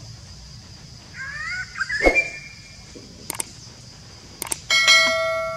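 Mouse-click sounds, then a bright bell ding from a subscribe-button animation that rings out and fades over about a second. Earlier there is a brief squeaky call with a sharp knock, over a steady high insect hum.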